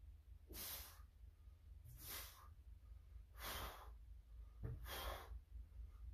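A weightlifter breathing hard through bench-press reps: four loud, hissing breaths about a second and a half apart, one with each rep, over a steady low hum.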